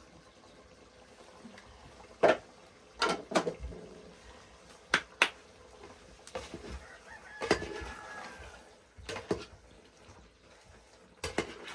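A series of about nine sharp knocks and clicks, irregularly spaced, some in quick pairs.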